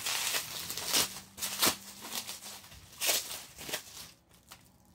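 Bubble wrap and plastic packaging crinkling and rustling in irregular bursts as a slime container is unwrapped by hand, dying down near the end.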